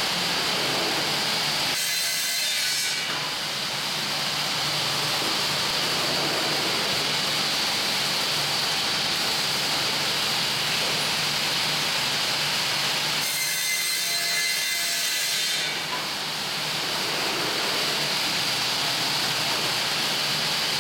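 Elcon vertical panel saw cutting an OSB board, its blade running with the dust extraction, making a loud, steady sawing noise. The cutting sound eases twice, about two seconds in and again around fourteen seconds, before coming back.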